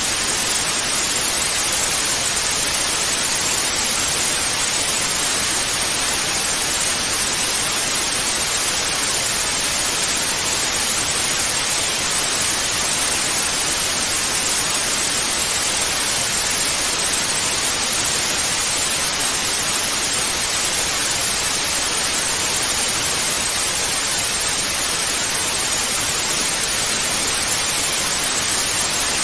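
Steady hiss of television static (white noise), even and unchanging, with most of its energy in the high end.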